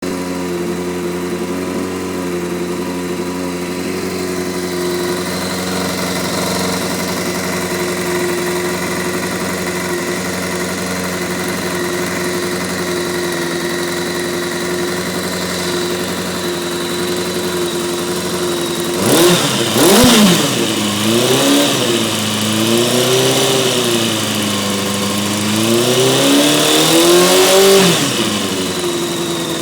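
Honda CBR600 F4i motorcycle's inline-four engine idling steadily, then revved in a series of blips about two-thirds through before settling back to idle. The owner hears a funny noise from the first cylinder on the left side and is trying to find its cause.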